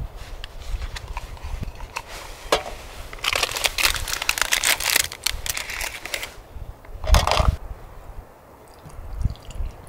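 Crinkling, crackling handling noise from a collapsible plastic cup and a thermos. It is densest for about three seconds in the middle, and a brief loud clatter comes about seven seconds in.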